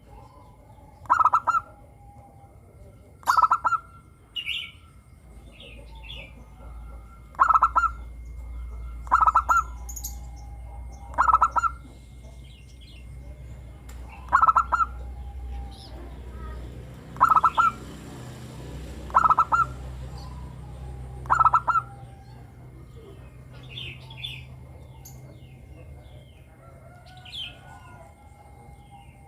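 Zebra dove (perkutut) singing, giving its short staccato coo phrase about every two seconds, nine times, then falling silent about two-thirds of the way through. Fainter chirps of other birds sound between the phrases.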